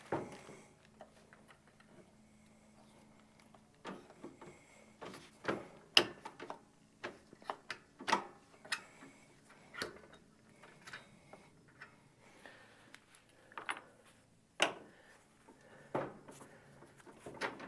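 Irregular metal clicks, taps and knocks of hand tools working on a lawn tractor's front wheel hub, straightening and pulling the cotter pin and freeing the wheel from its axle. Two knocks stand out, about six seconds in and near the end.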